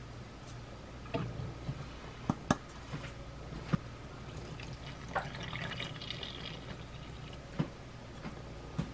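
Tempura flour tipped from a plastic measuring cup into a bowl, with a few light knocks of the cup, then water poured in from the cup, a short trickle into the flour about halfway through.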